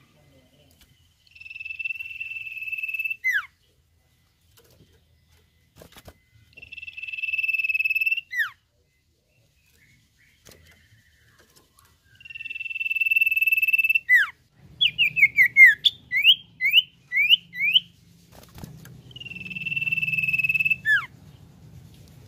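Common iora (cipoh) whistling: four long, steady whistled notes, each swelling in loudness and ending in a quick downward slur. Between the third and fourth, a rapid run of about eight short, sharp notes sweeping up and down.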